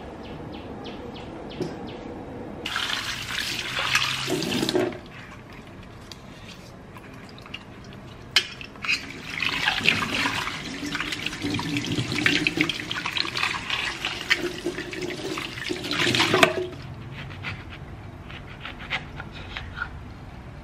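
Kitchen tap water running into a stainless-steel sink and over a grapefruit held in a steel bowl. The water runs in a short spell about three seconds in and a longer one from about nine to sixteen seconds, with a sharp click between them.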